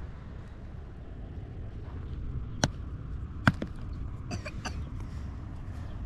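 Two sharp knocks of a hoe blade striking stony, dry soil, a little under a second apart, the second the louder, followed by a few lighter clicks of stones knocking together as a rock is set in place.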